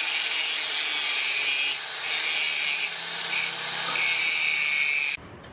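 A tool cutting into steel: a harsh, steady rasping with a thin high whine over it, dipping briefly twice and stopping abruptly near the end.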